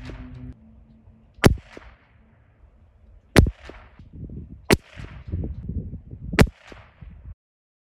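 .22 LR rifle firing SK Rifle Match ammunition from a freshly cleaned barrel: four sharp shots about one and a half to two seconds apart, with low rumbling between the later shots. The sound cuts off suddenly near the end.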